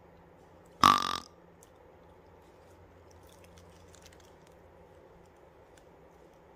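A single short, loud, burp-like grunt about a second in, against a faint steady outdoor background.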